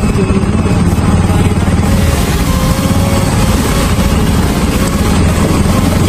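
Motorcycle engine running steadily while riding.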